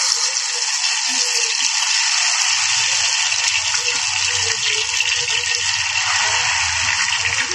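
Ghevar batter poured in a thin stream into very hot ghee in a deep steel pan, frying with a loud, steady, fizzing sizzle as it foams up into the ghevar's lacy lattice.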